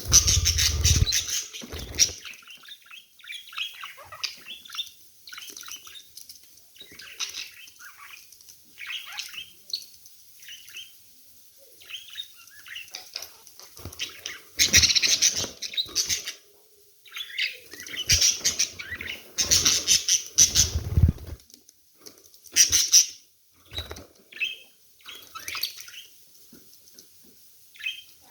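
Budgerigars chirping and chattering in quick, scratchy calls, with several loud bursts of wing flapping close by.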